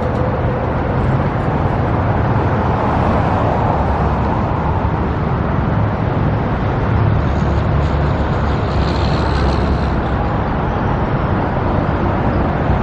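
Road traffic passing: a steady, loud rumble of cars and other vehicles, swelling a little as vehicles go by.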